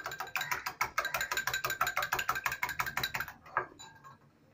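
Wire balloon whisk beating egg whites to a froth in a glass bowl: rapid, rhythmic clinking of the metal wires against the glass, about seven strokes a second, stopping a little after three seconds in.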